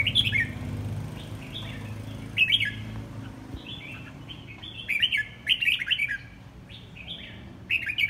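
Caged red-whiskered bulbul singing short, bright warbled phrases in bursts every two to three seconds, with a longer run of phrases about five seconds in.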